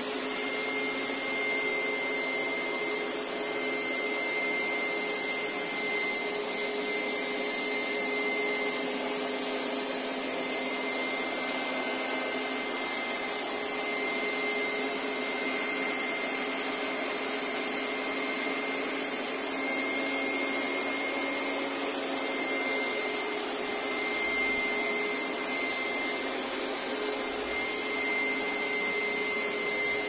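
Upright carpet cleaner running steadily as it is pushed across a woven rug, its motor giving a continuous hum with a steady high whine over it.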